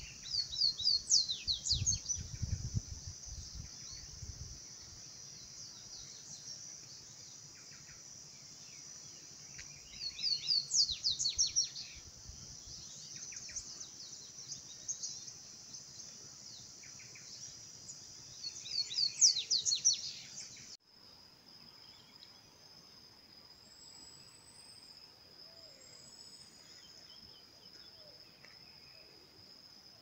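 A songbird repeats a short, fast phrase of high falling notes three times, about nine seconds apart, over a steady high insect drone. About two-thirds of the way through, the sound cuts abruptly to a quieter scene: a single steady high insect trill with a few faint bird whistles.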